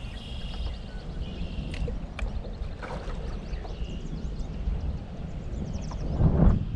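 Steady low rumble of wind and water around a small fishing boat on a lake, with a few faint high chirps and clicks, growing louder near the end.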